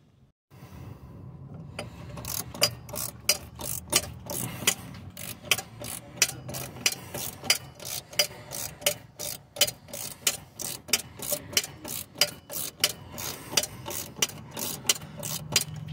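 Socket ratchet clicking steadily, about three clicks a second, as it backs the 13 mm bottom bolt out of a front stabilizer (sway bar) link. The clicks start about two seconds in.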